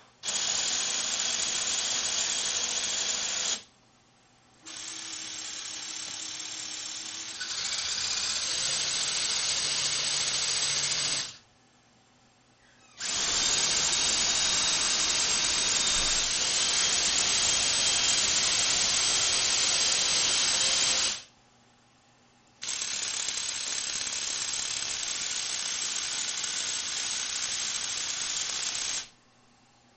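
Lego Technic electric motors whirring through plastic gearing as the CNC machine's axes move, in five runs of about three to eight seconds with short pauses between them. One run is quieter at first and gets louder and higher partway through.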